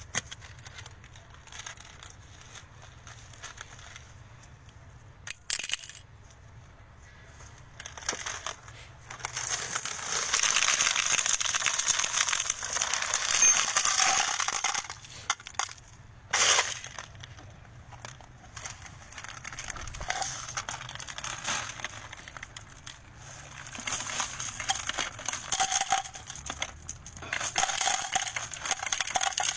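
Loose brass ammunition cartridges clinking and rattling together as handfuls are shaken out of a cloth bundle onto a heap. The sound comes in two long spells, about ten seconds in and again from about twenty-four seconds, with one sharp knock between them.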